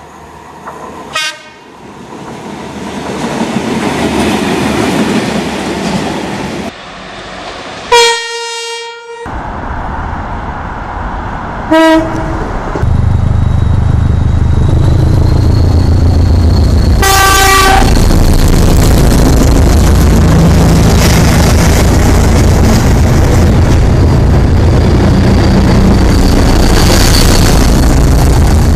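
Train horn sounding in several short blasts from separate clips. The longest and loudest comes about eight seconds in. From about thirteen seconds a train runs close by with a loud, steady low rumble, and it gives one more short horn blast partway through.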